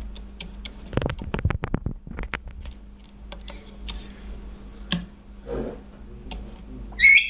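Pet rose-ringed parakeet making scattered soft clicks, with a fast rattling run of clicks about a second in and a short, loud, sharp call near the end.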